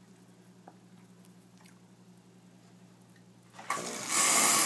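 Jura Impressa F50's professional frother: a low steady hum, then a sudden loud hiss about three and a half seconds in as the steam comes on. The spout spits an initial flush of hot water along with the steam, which the technician calls not a very happy situation for a frother of this quality.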